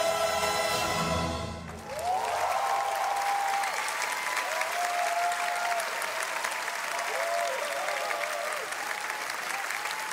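An orchestra and choir hold a final chord, which cuts off sharply a little under two seconds in. Audience applause and cheering follow, with whoops rising and falling in pitch.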